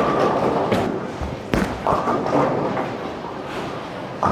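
Bowling alley din: heavy thuds of bowling balls and the crash of pins, with two sharp knocks in the first second and a half.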